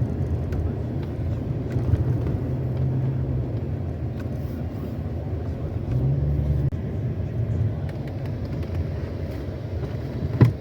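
Fiat Argo HGT 1.8 driving, heard from inside the cabin: a steady engine and road rumble. Near the end come a few sharp knocks as it goes over a speed bump, the clunk of a front stabilizer bar that slides sideways because it has no locating stop.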